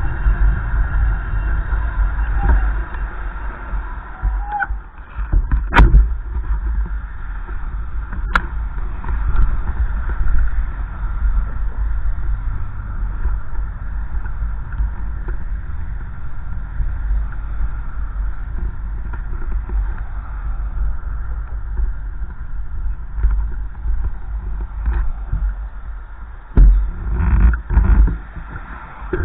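Wind buffeting the microphone: a gusty low rumble that rises and falls, with a couple of sharp clicks about six and eight seconds in.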